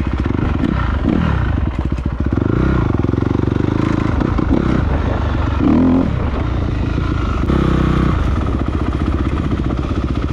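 Dirt bike engine running while being ridden, revving up and falling back several times.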